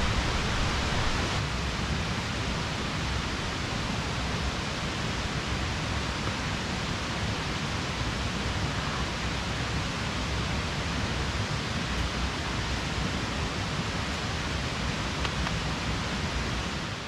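Steady outdoor rushing noise: an even hiss with a fluctuating low rumble beneath it, and no distinct events.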